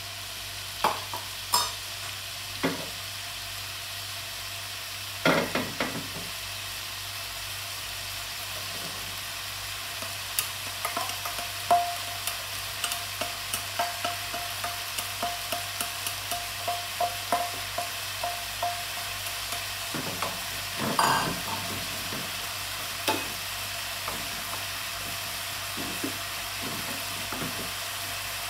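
Shredded pork ham frying with a steady sizzle in a wok, stirred with a wooden spatula that scrapes and knocks against the pan. A stretch of regular taps comes about two a second in the middle, and there are louder scrapes near the start and about two-thirds through.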